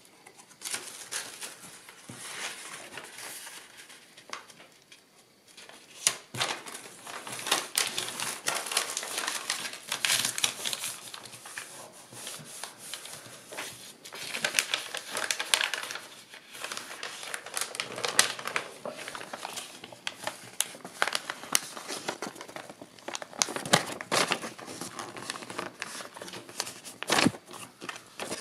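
Kraft paper rustling and crinkling as hands fold and crease it around paperboard, with frequent sharp crackles and a brief lull about four seconds in.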